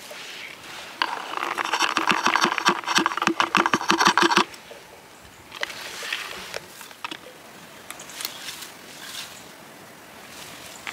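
Wild blueberries pattering and rattling into a hollow plastic container, a dense run of small hits for about three and a half seconds starting about a second in. Faint rustling of low blueberry bushes follows.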